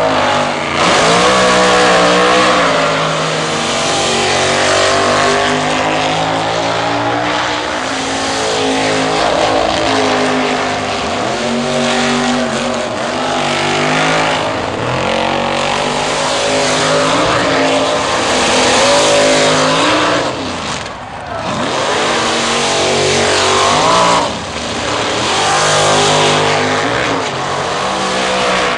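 Drag-racing cars launching at full throttle, one run after another: the engine's pitch climbs hard, drops at each gear change and climbs again.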